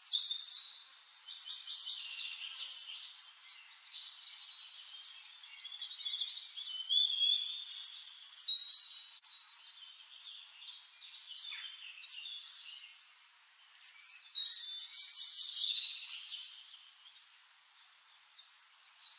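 Several songbirds singing at once in a woodland chorus: overlapping high chirps, trills and short whistled phrases, with louder bursts of song near the start, about halfway through and again about three quarters of the way in.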